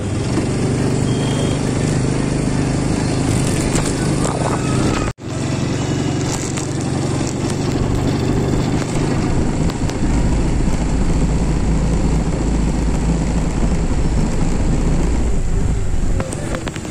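A small engine running steadily under a moving ride along a street. The sound breaks off sharply for an instant about five seconds in. From about ten seconds in, a heavy low rumble of wind on the microphone joins it.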